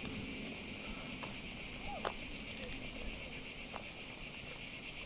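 A chorus of cicadas, a steady high-pitched buzz, added to the film's soundtrack as a sound effect. A few faint short chirps sound over it.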